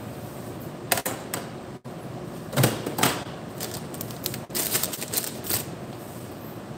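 Clattering clicks and knocks of kitchen items being handled and set down on a stainless steel counter, in several quick runs, over a steady background hum.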